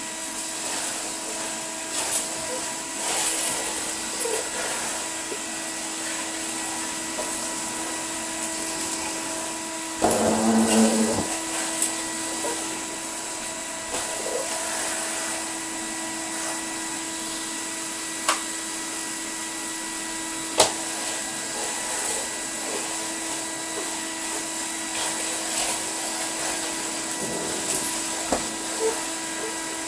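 1988 Numatic Henry HVR200 cylinder vacuum cleaner running steadily with a motor whine, its hard-floor tool being pushed over a laminate floor. The motor runs on newly fitted carbon brushes that are being bedded in. There is a brief louder burst about ten seconds in and a couple of sharp clicks later.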